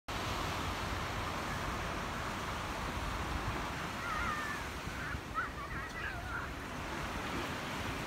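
Gentle ocean waves breaking and washing ashore in a steady rush, with a few brief faint calls around the middle.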